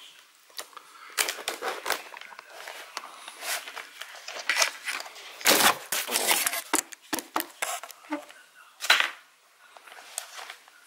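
Hands handling a laptop LCD panel and pulling it free of its adhesive tape: irregular sharp clicks, taps and rustles, the loudest about halfway through and again near the end.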